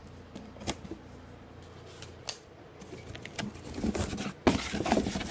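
Small knife slitting the packing tape on a cardboard box, with sparse light clicks and scrapes. About four and a half seconds in, louder, continuous cardboard rustling and scraping begins as the box is opened.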